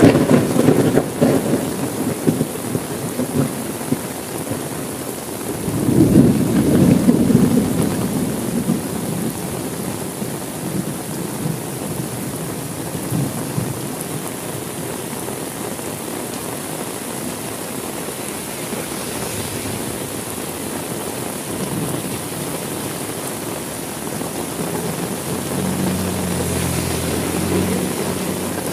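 Heavy rain falling steadily, with the tail of a thunderclap dying away at the start and a second roll of thunder about six seconds in. Near the end a faint low drone sets in under the rain.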